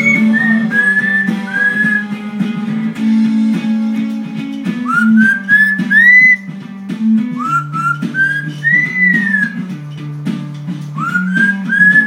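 Lilac-crowned Amazon parrot whistling runs of short rising notes, four times over, along with an acoustic guitar song playing in the background.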